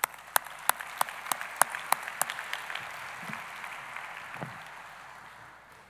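Audience applause, with one person's claps close to the microphone standing out sharply at about three a second for the first two seconds or so; the applause then thins and fades out.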